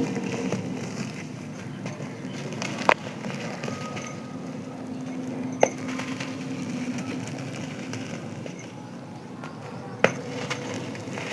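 Dry sand-cement chunks crumbling and crunching under hand pressure, a continuous fine crackle with three sharp snaps as pieces break.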